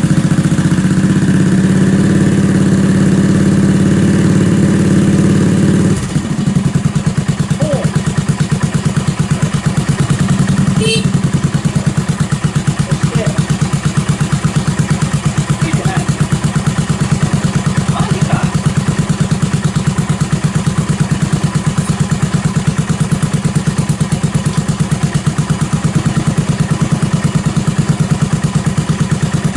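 Yamaha SR400's air-cooled single-cylinder four-stroke engine running loud, held at raised revs on the throttle. About six seconds in it drops suddenly to a slow, even idle with each firing pulse distinct.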